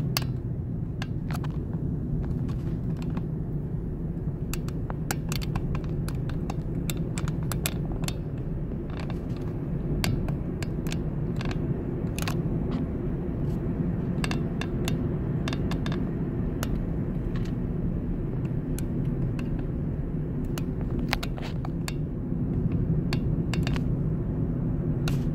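Rolling car heard from inside the cabin: a steady low rumble of tyres on pavement, with many small clicks and rattles throughout.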